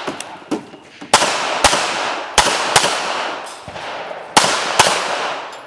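Pistol shots, mostly fired in quick pairs about half a second apart, three pairs in all, each shot followed by a long echoing tail; a few fainter shots fall in between.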